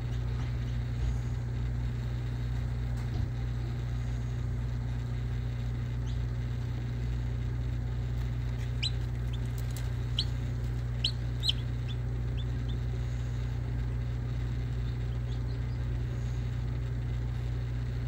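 Steady low hum of an egg incubator, with a few short, high peeps about halfway through from a chick hatching out of its shell.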